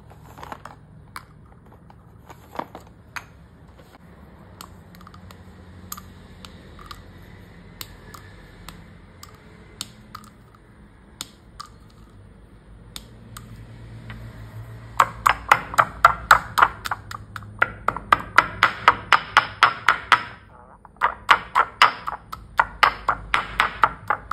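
Sticks of dry chalk clicking against one another and dropping into a stone mortar. About fifteen seconds in, a stone pestle starts pounding and crushing the chalk in quick, even strikes, about four a second, with a short break a few seconds before the end.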